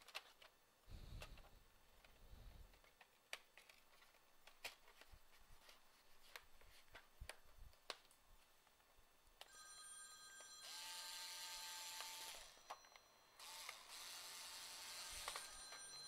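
Sharp plastic clicks and snaps as a laptop's plastic bottom cover is pressed down and its clips catch. From about ten seconds in, a steady high ringing tone over a hiss runs in two stretches with a short break.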